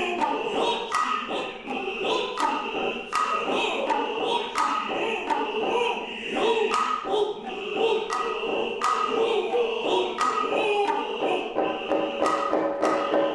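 Noh music: voices chanting in sustained, wavering tones over sharp hand-drum strikes that come at a steady pace, about one every second or less.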